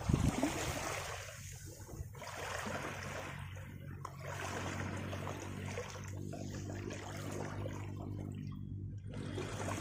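Small waves washing in and out over a pebbly shoreline at the water's edge, the wash swelling and fading every couple of seconds.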